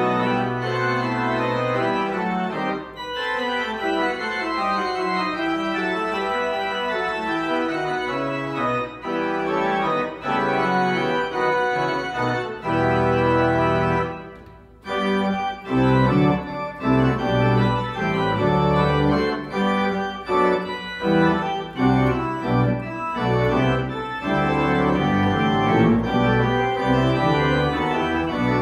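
Church organ playing chords. The chords are held and sustained at first, then break off briefly about halfway through. After that come shorter, detached chords over deep bass notes from the pedals.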